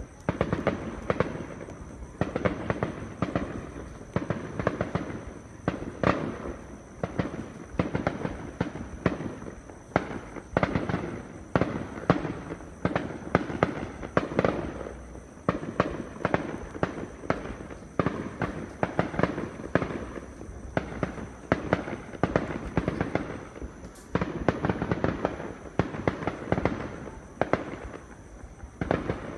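Aerial fireworks display: a continuous barrage of bangs, several a second, with louder single booms scattered through.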